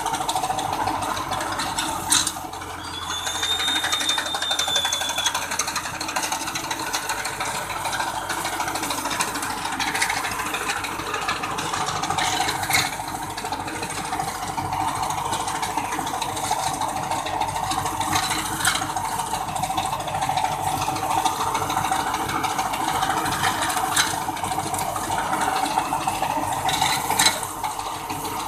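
Tractor-mounted reaper-windrower cutting standing wheat: a steady mechanical clatter from the cutter bar over the running tractor engine, with a few sharp clicks.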